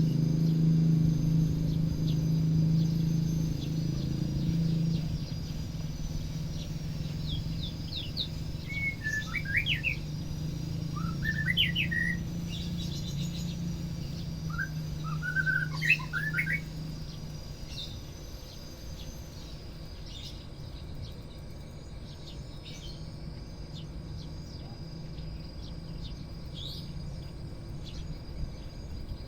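White-rumped shama (murai batu) giving several short chirping phrases, in clusters, over a low steady hum that fades out partway through.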